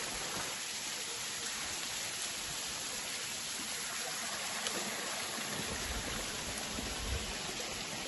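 Small waterfall spilling over a rock face onto stones and into the stream below: a steady hiss of falling and running water. Some low rumble joins in during the last couple of seconds.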